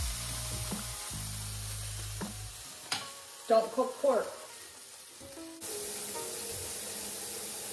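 Pork belly frying in a pan, a steady sizzle that steps up suddenly in loudness about two-thirds of the way through.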